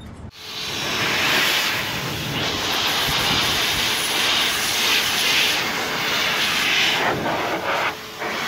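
A loud, steady rushing noise with no clear pitch starts abruptly and dips briefly near the end, standing in as 'the most annoying sound in the world'.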